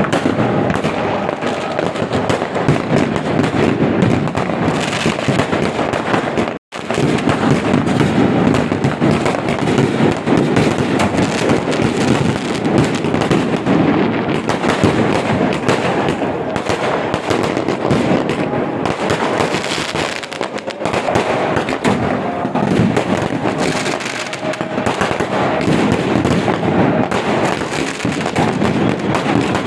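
Dense, continuous barrage of firecrackers and fireworks going off, rapid overlapping bangs and crackling with no let-up. There is a momentary break to silence about seven seconds in.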